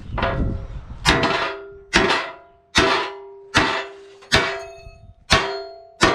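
Heavy hammer blows on a steel truck bumper being straightened, about seven evenly spaced strikes, each leaving the metal ringing with a clear metallic tone.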